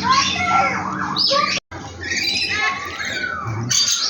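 Several birds squawking and chirping at once, their calls overlapping in short rising and falling glides; the sound cuts out abruptly for a moment about one and a half seconds in.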